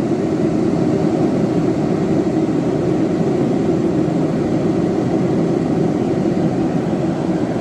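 Mr. Heater Contractor Series 30,000–60,000 BTU propane forced-air heater running: a steady, unchanging rush of its fan and burner.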